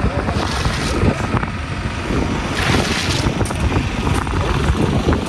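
Wind buffeting the microphone: a loud, steady rumble with several swells of hiss.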